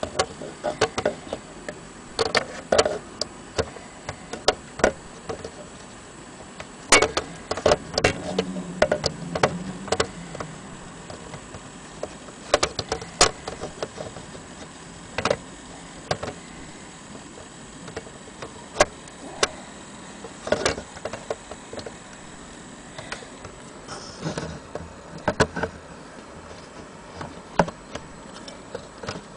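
Sharp clicks and light knocks at uneven spacing, some much louder than others, around a key-wound Hermle Westminster wall clock's wooden case, with the clock's movement ticking among them. No chime sounds.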